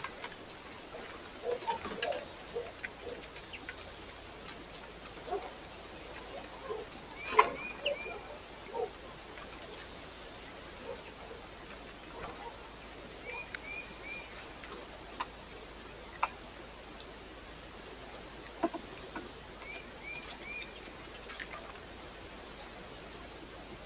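Small birds at a feeder: scattered pecking and tapping, with a few short high chirps coming in quick sets of three, over a steady hiss from the camera's microphone.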